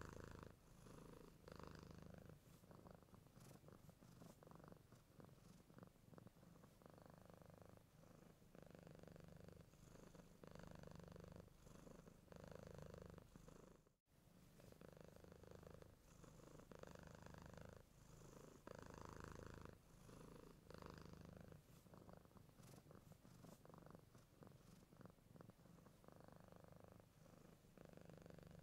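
Cat purring quietly and steadily, swelling and easing with each breath in and out, with a momentary break near the middle.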